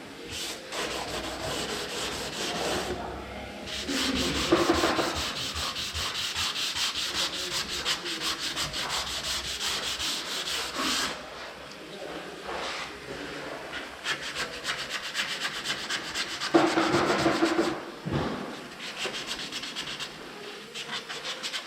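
Sandpaper rubbing over body filler on a vehicle panel in quick, even, repeated strokes, with a few short breaks.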